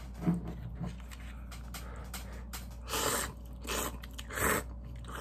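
Cup ramen noodles being slurped and eaten: three short, airy slurps come a little past the middle. A brief click is heard near the start.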